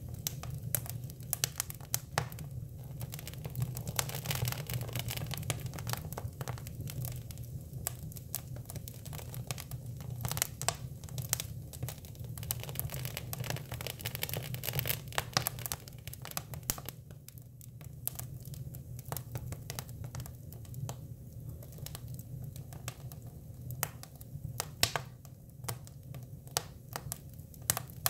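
Hinoki cypress wood burning in a fire, crackling with irregular sharp pops and snaps over a low, steady rumble.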